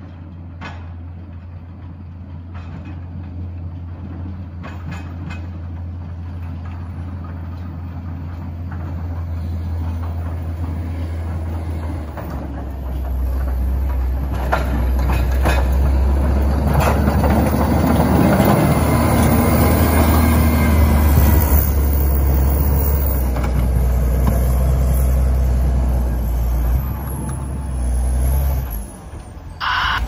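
Diesel motor grader plowing a snowy street. Its engine grows steadily louder as it approaches and is loudest as it passes close by, about halfway through, with the rushing scrape of the plow blade through snow. The engine drops away briefly near the end.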